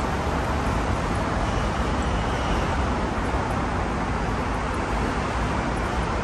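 Steady vehicle and traffic noise: an even low rumble under a continuous hiss.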